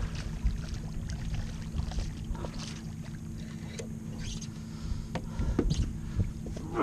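Low rumble of wind on the microphone and water against a canoe. Scattered small knocks and splashes come from a hooked bonnethead shark thrashing beside the boat, with a faint steady hum underneath.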